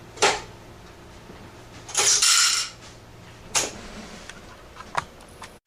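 A few sharp metallic clicks and one short clattering rattle from the mechanism of an antique Western Electric three-slot payphone.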